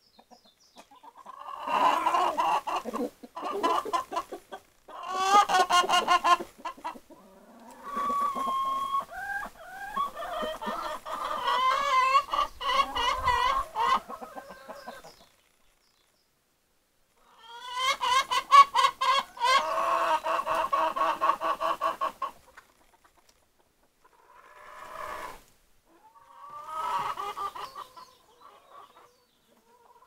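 A flock of backyard chickens clucking and calling in several long bouts, some with quick runs of repeated notes, with short pauses between them and the longest pause about halfway through.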